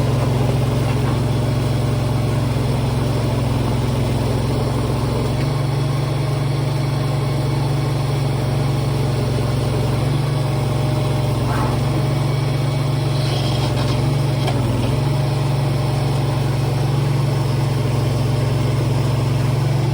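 Engine of a small working machine running steadily at constant speed while it lifts the front end of a skid steer, its note shifting slightly a few times.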